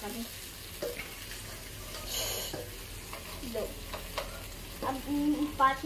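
Chicken pieces sizzling as they fry in oil in a wok, stirred with a spatula, with a brief louder hiss about two seconds in.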